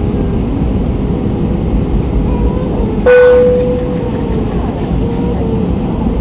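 Steady cabin rumble of an Airbus A320-family airliner in its descent to land: engine and airflow noise heard inside the cabin. About three seconds in, a single sudden loud tone rings out and fades over about a second.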